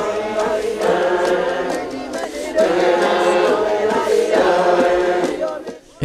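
A group of voices singing together without instruments, in long held phrases with a short break about two seconds in; the singing stops just before the end.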